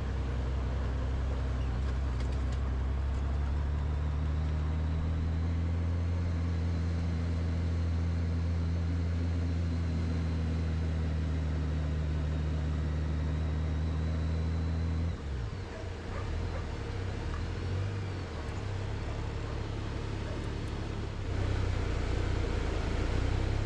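Motorcycle engine running steadily under way, then easing off about fifteen seconds in to low, uneven revs as the bike slows to a crawl, with a small rise in level near the end.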